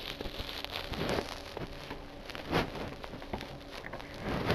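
Handling noise: a phone being moved about with clothing rubbing close against its microphone, giving an irregular crackly rustle with scattered clicks. A louder rustle comes about two and a half seconds in.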